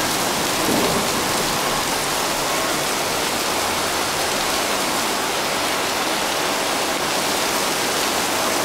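Heavy thunderstorm downpour: a dense, steady hiss of rain that does not let up.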